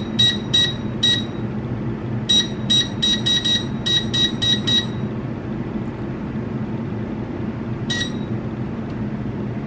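Digital air fryer's touch-panel buttons beeping with each press as the temperature and timer are set. Four quick beeps, then a fast run of about ten beeps a second or so later, and a single beep near the end, over a steady low hum.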